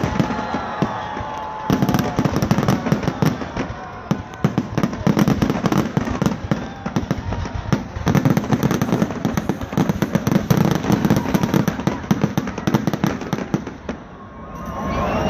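A dense barrage of fireworks, with rapid bangs and crackling packed close together, dying away about fourteen seconds in.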